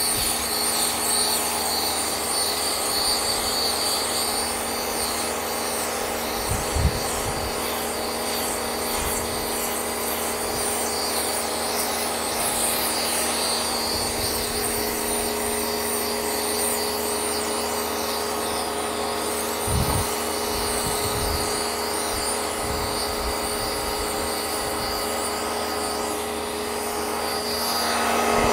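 Kärcher K2 1400-watt electric pressure washer running steadily, its motor and pump humming under the hiss of the water jet spraying onto a trampoline mat. A couple of brief low thumps break in, once about seven seconds in and again about twenty seconds in.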